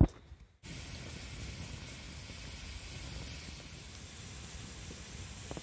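Log campfire burning: a steady hiss that starts abruptly about half a second in, with a few faint pops near the end.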